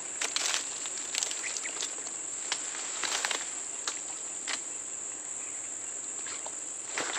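Steady, high-pitched drone of insects in the vegetation, one unbroken tone, with scattered light clicks and rustles over it.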